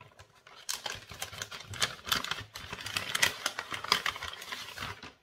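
Dense, irregular crinkling and rustling of the wrapping as a small advent-calendar gift bag is opened and the item inside is unwrapped.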